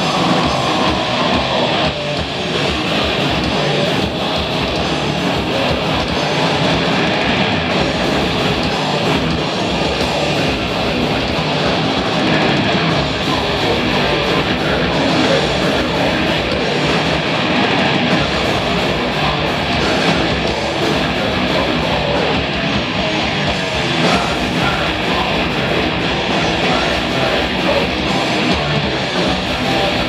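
Live band playing loud, steady music on electric guitars and drums.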